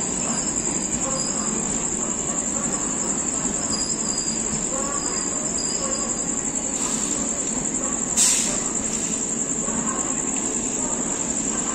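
Crickets trilling steadily over the low rumble of Kutch Express passenger coaches rolling slowly past, with a sharp clank about eight seconds in.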